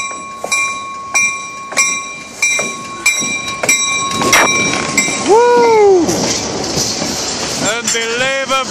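Freight train passing close by: a bell strikes about every 0.6 s and stops about four and a half seconds in. The train's noise then grows, with a short rising-and-falling squeal and several more squeals near the end.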